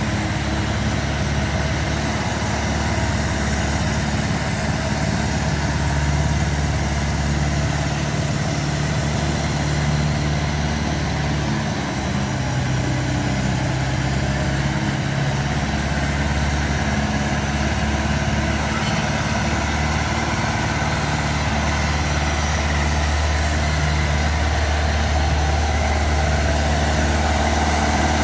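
Tractor-mounted ice resurfacer's engine running steadily at low revs as it works the rink, growing a little louder near the end as it comes close.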